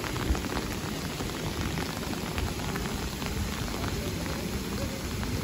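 Steady rain falling on wet paving stones: an even hiss of rain with many small drop ticks.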